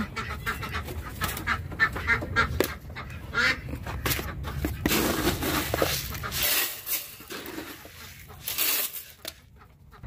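Backyard poultry making a series of short calls, thinning out and quieter over the last few seconds.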